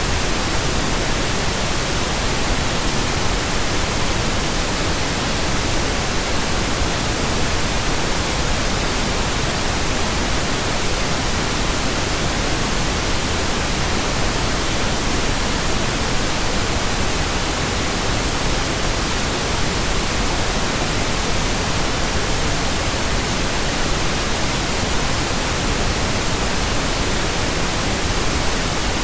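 Steady synthetic pink noise: an even, unbroken hiss spread across the whole range from deep rumble to high treble, unchanging in level throughout.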